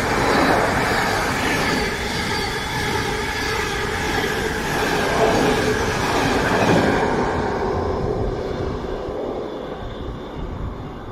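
Thameslink Class 700 electric multiple unit passing through at speed: a loud rush of wheels on rail with steady high tones over it, fading away from about seven seconds in as the train draws off.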